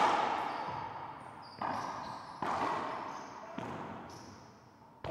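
Racquetball rally: about five sharp cracks of the ball off racquets and walls, each ringing out in the enclosed court's echo, with brief high squeaks of shoes on the hardwood floor between hits.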